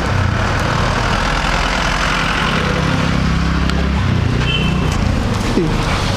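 A motor vehicle engine idling with a steady low hum, over a background of street traffic noise.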